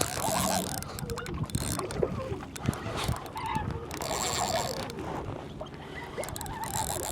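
Hobie Lynx kayak's pedal drive turning, its mechanism clicking and rattling, with water moving along the hull.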